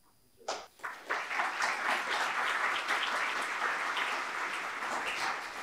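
Audience applauding: a few separate claps about half a second in, then a full, steady round of clapping that begins to thin near the end.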